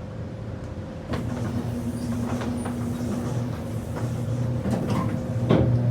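Dover hydraulic elevator running: a steady mechanical hum starts with a click about a second in and holds, with a few faint clicks along the way.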